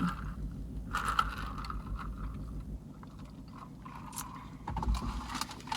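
Low rumble of nearby construction and city noise, with a few scattered clicks and scrapes. The rumble fades about three seconds in.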